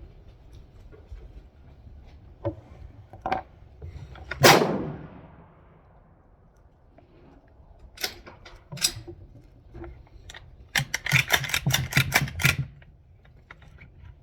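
Gunfire at a range. One loud shot rings out with a long fading echo about four and a half seconds in. Scattered sharper cracks come before and after it, and a quick string of about eight shots follows near the end.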